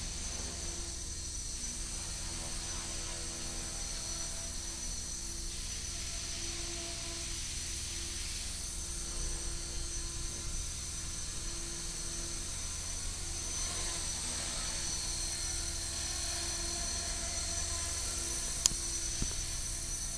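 Small electric RC helicopter in flight: a steady high-pitched motor whine over a low rotor hum. A single sharp click near the end.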